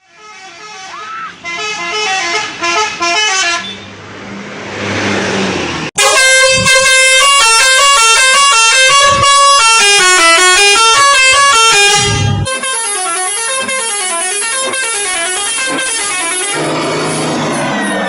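Bus 'telolet' horn: a set of tuned air horns playing quick stepping multi-note tunes over and over. A rising hiss comes in just before a sudden cut about six seconds in to a louder horn tune, and the tune turns to a slower warble near the end.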